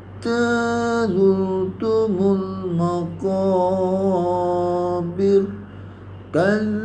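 A man's voice in melodic Quran recitation (tajwid with tarannum), holding long drawn-out notes with ornamented turns in pitch. There is a brief breath pause about five and a half seconds in, then a new phrase begins near the end.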